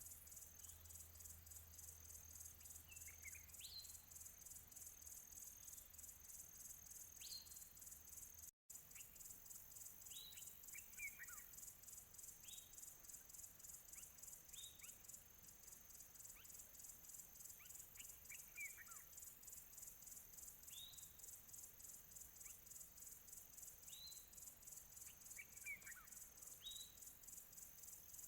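Faint countryside chorus of crickets chirping in a steady, rapid, high-pitched pulse, with a bird's short downward-sliding whistled calls every couple of seconds. The audio cuts out for an instant about a third of the way through.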